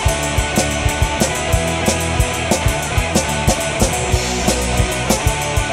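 Intro theme music, rock with a steady drum beat.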